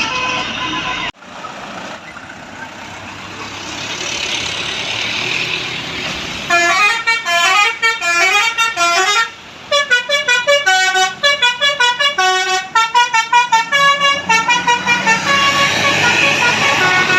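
A bus's Basuri telolet musical air horn plays a fast tune of short, stepped notes from about six seconds in. It pauses briefly around nine seconds, then carries on until about fifteen seconds. Before and after the tune there is the steady noise of the bus and the street.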